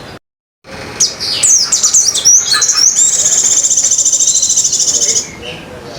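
Crimson sunbird singing high, quick chirps and sweeping notes, then a long, very fast trill of about two seconds. Its song is filled with mimicked white-eye phrases. The sound cuts out briefly right at the start.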